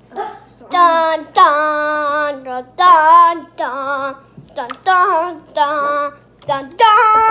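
A young girl singing loudly in a high voice, a string of about seven held, wavering notes with short breaks between them.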